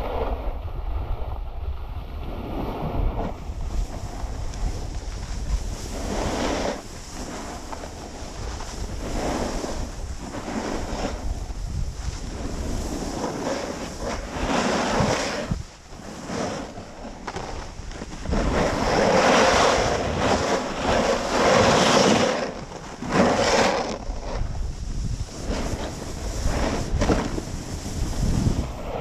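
Wind buffeting the microphone and a snowboard sliding and carving over groomed snow. The noise rises and falls in surges with the turns and is loudest a little past the middle.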